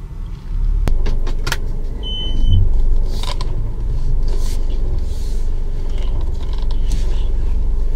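Car engine running and rumbling as heard from inside the cabin while the car is being parked. There are two sharp clicks about a second in and a brief high beep about two seconds in.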